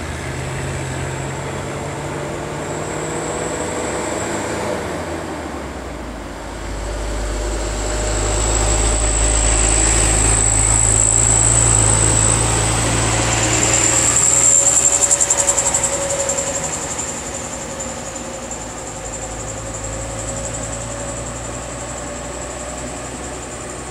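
Diesel dump truck's engine rumbling as it drives close past, growing louder to a peak past the middle and then fading, over a steady engine hum.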